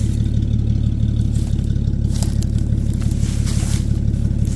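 An engine idling steadily. Over it come a few brief rustles and scrapes of weeds and brush being pulled and pushed aside, about two seconds in and again near the end.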